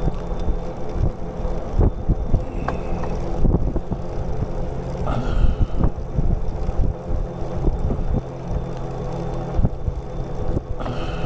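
A bicycle ridden along a paved path: the frame and handlebar mounts rattle and knock over small bumps, with a steady low drone underneath.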